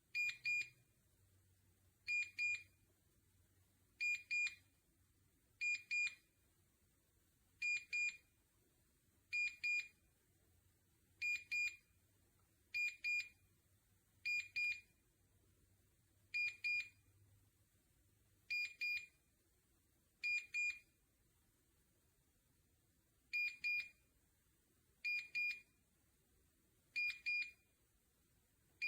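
Electronic beeper of a biometric pistol safe sounding short, high double beeps about every two seconds, some fifteen times. These come while a fingerprint is being tried and not accepted.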